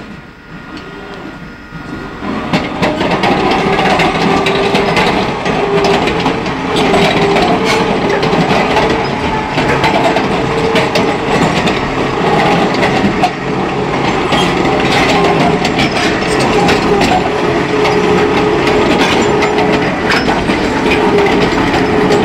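Large excavator travelling on its steel crawler tracks: continuous grinding and clanking of the track links over the rollers and sprocket, with a steady hum from the drive. It starts up about two seconds in.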